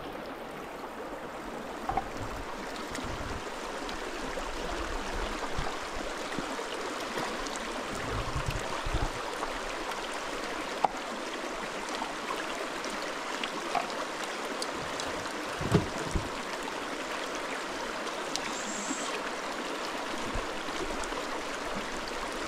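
A shallow rocky mountain stream running steadily over stones, with a few faint clicks and low knocks now and then.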